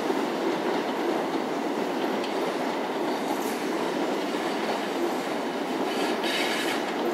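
Express passenger train coaches rolling steadily past on the adjacent track: a continuous rumble of wheels on rail, with a few sharper clicks about six seconds in.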